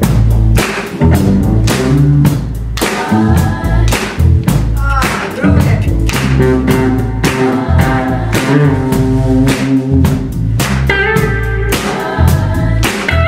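Live rock band playing: drum kit, electric bass and electric guitar, with a group of voices singing together over them.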